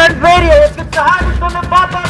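Music: a song with sung vocals over repeated heavy bass notes.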